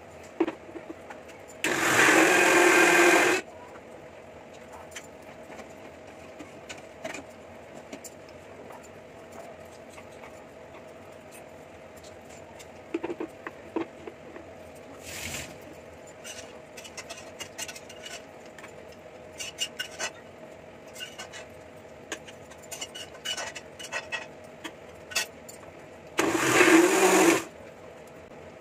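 Electric mixer grinder running in two short bursts of about two seconds each, one near the start and one near the end, grinding cooked spinach and onion masala with no water added yet. Between the bursts come light clinks of steel spoons and bowls against the jar.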